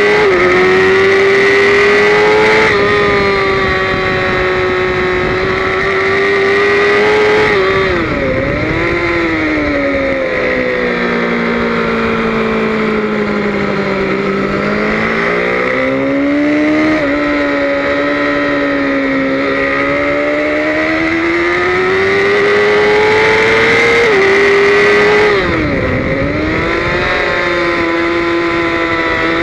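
BMW S1000RR's inline-four engine running hard under the rider, with steady wind rush. Its note climbs and drops several times as it is shifted up and down, with a sharp dip at about eight seconds and again at about twenty-five.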